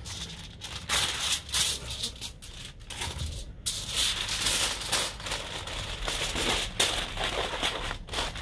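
Aluminium foil crinkling and rustling as it is folded and crumpled by hand around a piece of meat, in irregular bursts.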